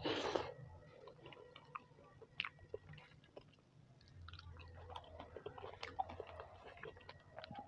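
Close-miked eating sounds of a man eating soft khichdi by hand: a brief louder wet mouth sound as his fingers go into his mouth at the start, then soft chewing with small wet clicks. Later his fingers squish through the khichdi on the plate.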